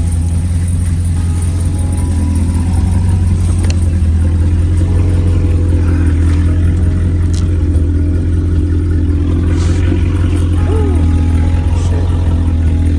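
Chevrolet Camaro SS V8 engine running steadily, a low even drone that rises slightly in level about three seconds in.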